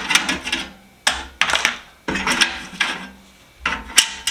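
Loose metal hand tools and sockets being rummaged and handled in a toolbox: several short bursts of rattling, clinking and scraping, each starting sharply.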